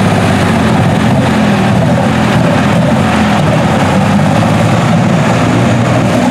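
Light super stock pulling tractor's engine running flat out under the load of the sled, a loud steady rumble with its rear tyres spinning in the dirt.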